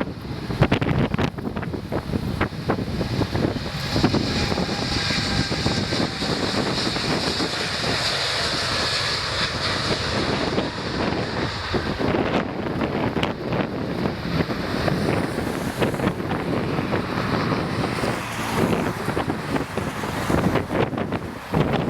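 Gusty wind buffeting the microphone, over the jet engines of a Boeing 787-9 airliner passing by. The engines' high whine builds from about four seconds in, is strongest around nine seconds, and fades by about twelve seconds.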